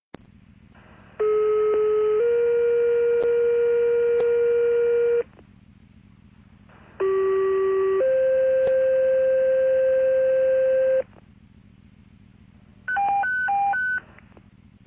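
Fire dispatch two-tone sequential paging tones heard over a scanner radio: two sets, each a steady tone of about a second stepping up to a higher tone held about three seconds, alerting Bourne fire stations 3 and 4 to turn out. Near the end comes a brief run of short alternating beeps.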